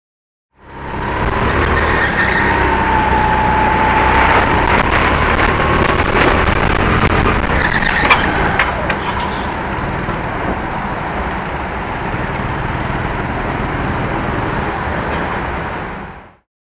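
Kart engine running at speed, heard from an onboard camera, its whine dipping and then rising. About eight seconds in comes a cluster of sharp knocks and rattles, the kart losing a wheel. After that the engine runs quieter.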